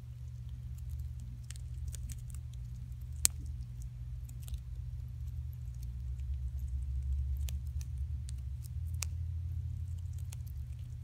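Dwarf hamster nibbling a seed in paper bedding: scattered small clicks and crackles, with one sharper click about three seconds in. A steady low hum runs underneath.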